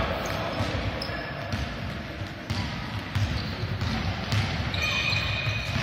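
Basketball bouncing on a wooden gym floor during play, a series of thuds in a large hall, with a short high squeak near the end.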